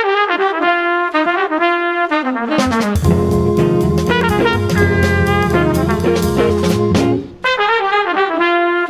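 Jazz quintet of trumpet, alto saxophone, guitar, Hammond B-3 organ and drums playing the head of a minor blues. The horns play the melody over stop-time hits, then the organ and drums come in swinging in time about three seconds in. The band drops back to stop time just before the end.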